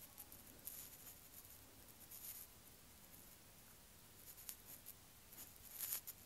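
Faint taps and short scrapes of an Apple Pencil tip on an iPad's glass screen, a handful of brief strokes spread over a few seconds.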